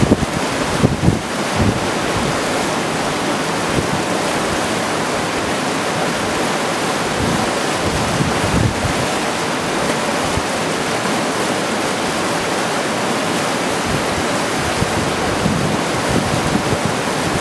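Steady rush of a creek cascading over rocks, with wind now and then buffeting the microphone in brief low rumbles.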